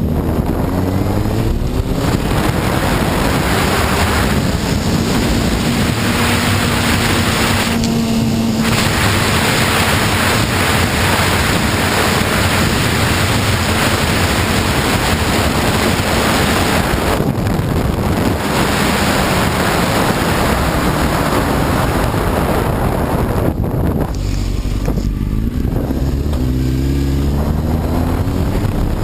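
Honda CBR954RR inline-four sportbike being ridden at speed, with heavy wind rush over the microphone that mostly covers the engine. The engine pitch rises as the bike accelerates near the start, and again near the end after a brief easing off.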